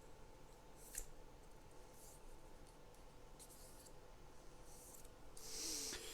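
Faint handling of a small Lego Technic part and a sticker being placed on it: a light click about a second in, a few soft scrapes, and a louder rustle near the end.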